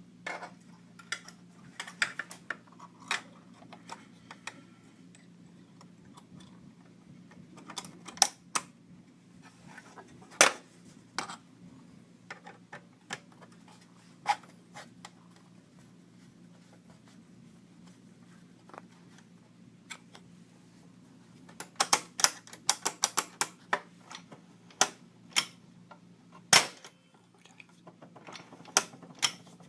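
Scattered sharp clicks and light metal knocks from the door's latch hardware and cover being handled and refitted, coming singly and in quick flurries over a steady low hum.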